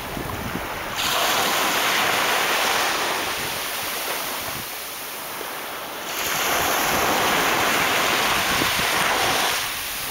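Sea waves washing in, a rushing surge that comes twice, easing off in between.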